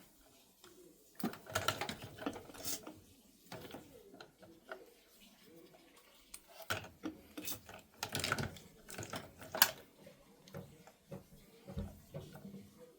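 Clicking and rattling of small plastic printer parts being handled, in two busy spells with a few dull knocks near the end.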